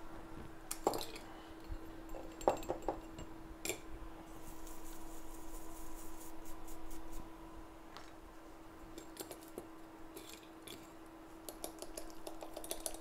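Small tools clicking and clinking at a microsoldering bench, with a few seconds of high scratchy hiss in the middle as the iPhone 7 logic board is cleaned of flux. A steady electrical hum runs underneath.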